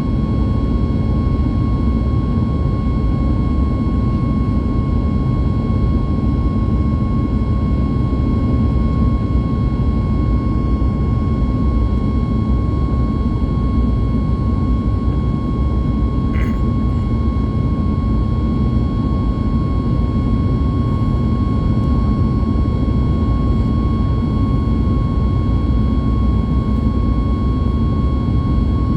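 Steady cabin noise of a Boeing 737 MAX 8 in flight: a deep rumble of its CFM LEAP-1B turbofan engines and rushing air, with a steady high whine from the engines. A brief click about sixteen seconds in.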